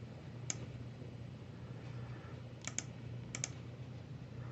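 Sharp clicks at a computer: one click, then two quick pairs of clicks, over a low steady hum.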